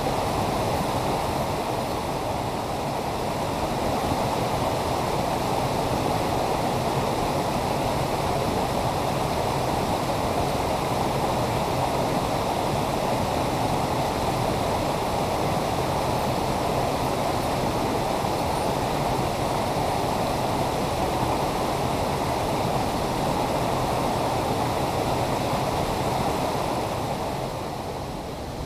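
A mountain stream rushing steadily over boulders and a small cascade, an even roar of water; it gets a little quieter near the end.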